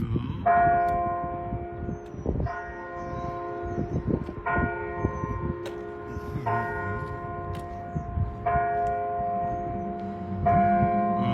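A single church bell tolling, about one stroke every two seconds, six strokes at the same pitch, each ringing on until the next.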